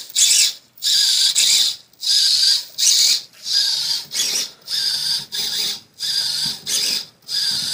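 BETU 70 kg brushless servo whining through its gears in quick back-and-forth sweeps, about eleven short bursts with brief pauses between. It is lifting and lowering a one-gallon water jug of about 8.5 lb, a load it handles without trouble.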